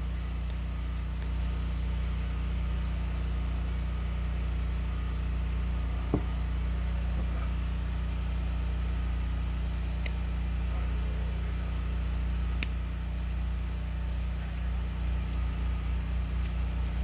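Steady low mechanical hum, with a few faint clicks of a screwdriver working the Phillips screws out of a carburetor throttle shaft.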